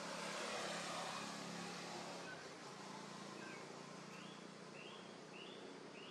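Outdoor background of steady hiss and a low hum, with a run of four or five short, high, arched chirping calls about half a second apart in the second half.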